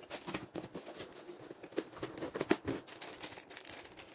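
Clear plastic bags crinkling and rustling as hands rummage through them in a plastic parts box, with irregular small clicks, a few louder ones about two and a half seconds in.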